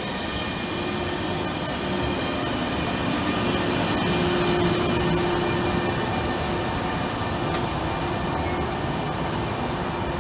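Intercity Notte passenger train, double-headed by two E402B electric locomotives, running through a station: a steady rumble of wheels on rail with several thin high tones over it, growing a little louder toward the middle.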